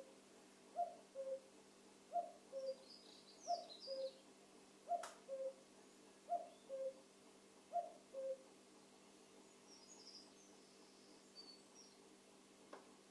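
Male common cuckoo calling its two-note "cuck-oo", the second note lower than the first, six times about a second and a half apart, then falling silent about eight seconds in. Faint high chirps of a small bird come in between.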